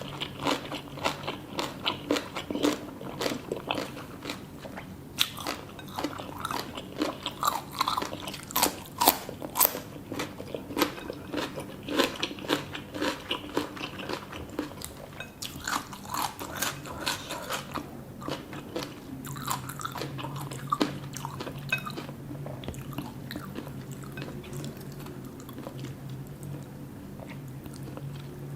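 Close-miked chewing and crunching of crisp food, with many sharp crackly bites through the first half that thin out later. A low steady hum runs under the second half.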